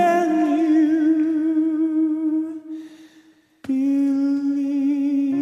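A male singer holds a long sung note with vibrato over soft accompaniment. The note fades away about three seconds in, and after a brief hush another held note starts abruptly.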